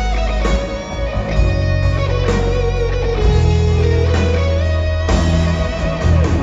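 Live rock band playing: an electric guitar lead holds a long note over bass and drums, the note bending down near the end.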